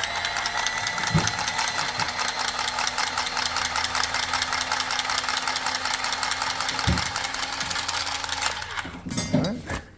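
A motor running steadily with a fast, even pulsing, starting suddenly and cutting off suddenly near the end.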